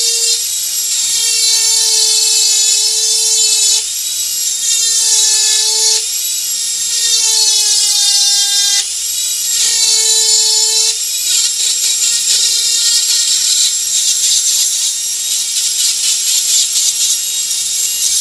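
Dremel rotary tool spinning a carving burr at high speed against wood, a steady high whine whose pitch sags several times as the burr bites in under load and picks back up as it eases off.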